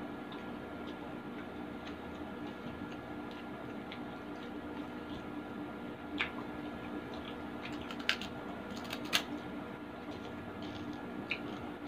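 Close-up eating sounds: fingers squishing through rice and grilled tilapia, with soft mouth clicks and a few sharp crunches of chicharon (pork cracklings) being bitten, the loudest two near the end.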